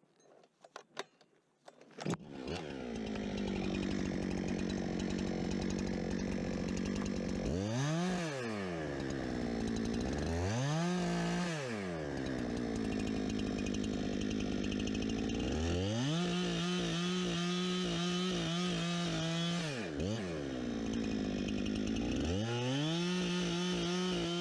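Two-stroke chainsaw cutting firewood logs. After a couple of quiet seconds with a few clicks, the saw revs up and runs at high speed. Its engine speed dips and climbs back several times.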